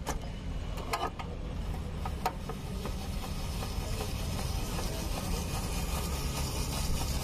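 A hand-cranked spiral potato cutter is turned as its blade slices a skewered potato, giving a few sharp clicks in the first two and a half seconds. Under it runs a steady low rumble and hiss of street traffic.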